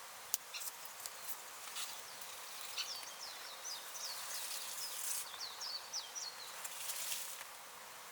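A bird chirping a rapid run of short, high, falling notes for about four seconds from a third of the way in, over a steady outdoor hiss, with a few sharp clicks scattered through.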